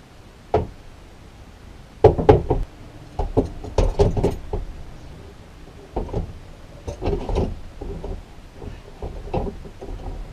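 Irregular knocks and thumps of hands-on building work in the back of a van, one near the start and then clusters of hits from about two seconds in; the loudest come around two seconds in.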